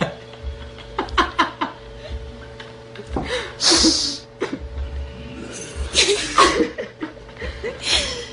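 Girls laughing and giggling in several short, breathy bursts, the loudest about three and a half seconds in.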